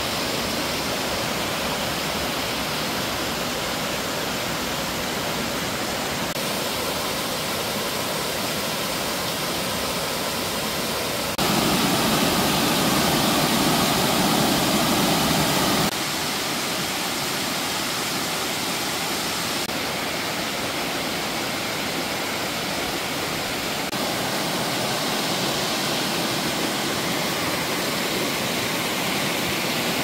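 Mountain stream rushing down small cascades over rock slabs: a steady, even sound of white water. It changes abruptly several times and is loudest for a few seconds near the middle.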